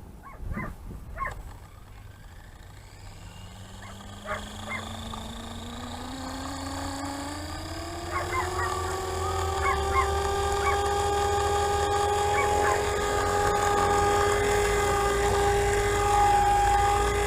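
FORZA 450 RC helicopter's drive and rotor spooling up: a whine that rises in pitch and loudness for several seconds, then settles into a steady tone from about nine seconds in. The main gear has partly stripped teeth, which the owner found to be the cause of an abnormal noise while the rotor turns.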